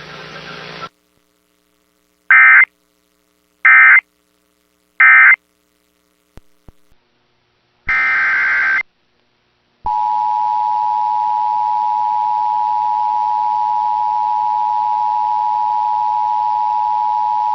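Emergency Alert System data tones: three short identical buzzing bursts about a second and a half apart, typical of the end-of-message code, then a single longer burst near the middle. About ten seconds in, the steady two-tone EAS attention signal starts, a loud dual tone held without a break.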